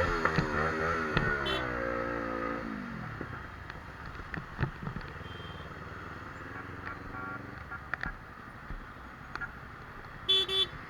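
Motorcycle engines revving with the pitch rising and falling, then dropping away over the first three seconds as they pass. Quieter road noise follows, and near the end comes a quick run of short horn beeps.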